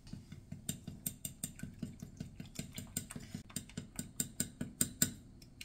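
Metal fork beating eggs in a glass baking dish, the tines clicking against the glass in a quick, even rhythm of about five strokes a second, then stopping shortly before the end.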